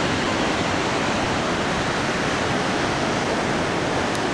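Steady rushing of a glacial meltwater torrent and waterfall in the gorge below.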